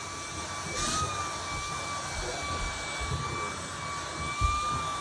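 Vacuum cleaner running steadily with a high motor whine while it is drawn over a dog's coat to pull out loose hair, with low rubbing and handling noise. A brief bump about four seconds in.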